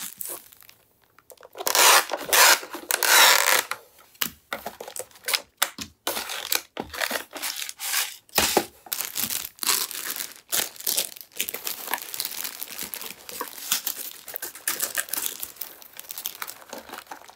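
Paper lid and plastic packaging of an instant yakisoba tub being torn and handled: a long loud tearing rustle about two to four seconds in, then irregular crinkling and rustling of plastic packets and a bag of shredded cabbage with small clicks.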